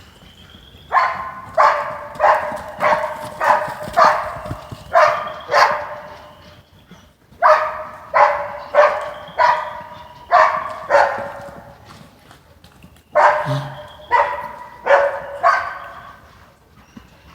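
A dog barking in three bouts of short, evenly spaced barks, about two a second, with pauses of a second or two between bouts.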